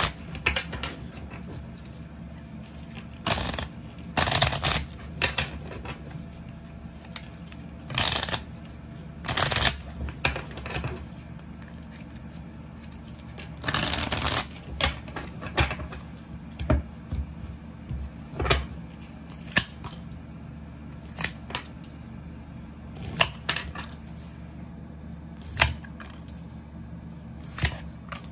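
Tarot deck being riffle-shuffled and bridged by hand. Bursts of riffling cards come every few seconds, with lighter clicks and taps between.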